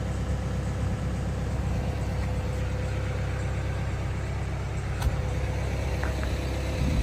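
The road sweeper's VM Motori four-cylinder diesel engine idling steadily, a low even rumble with a faint steady whine over it.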